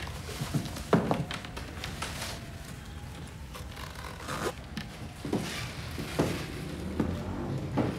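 Leather high-heeled ankle boots being handled and pulled on, with rustling and scraping, then heel steps knocking on a wooden floor, a little under one a second, over the last few seconds.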